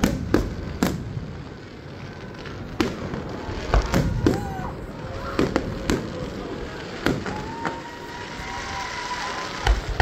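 Aerial fireworks bursting overhead: a string of sharp bangs at uneven intervals, with crackle between them.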